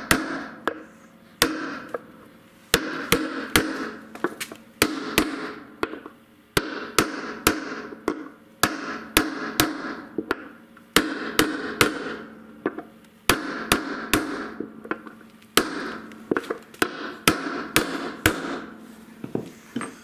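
Hammer blows on a copper drift driving a ball bearing into the bearing seat of an LG washing machine tub, struck only on the outer edge of the bearing, in quick runs of several blows about two or three a second with short pauses. Each blow rings briefly after it, the sign that the bearing is not yet fully seated; once it is home the blows turn dull.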